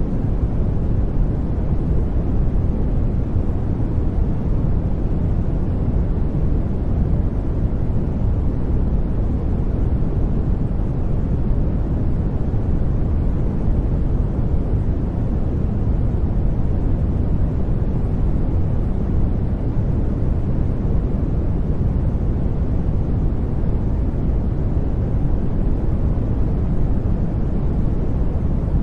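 Steady noise track, labelled white noise but deep and rumbling, strongest in the low end and dull at the top, with no changes. It is the masking bed over subliminal affirmations, which are not heard as words.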